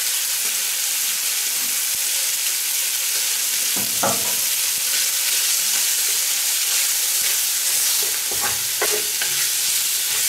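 Diced goulash meat searing in a hot cast-iron Dutch oven, sizzling steadily while a wooden spatula stirs it, knocking and scraping against the pot about four seconds in and a few times near the end.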